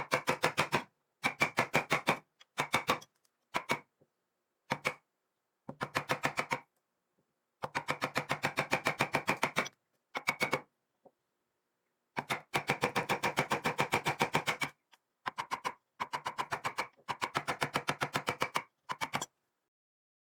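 Rapid, evenly spaced sharp taps, about eight a second, in a string of short bursts broken by dead silence.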